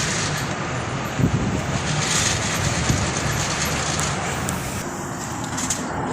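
Engine of heavy demolition machinery running steadily under a broad, rumbling noise, with two sharp knocks about a second and three seconds in.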